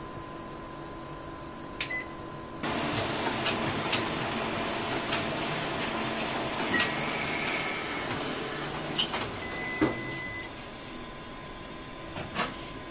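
Office multifunction photocopier running a copy cycle: an even whirring starts about two and a half seconds in and stops near nine seconds. Short high beeps from its control panel and clicks as it is handled come through, with a longer beep about ten seconds in.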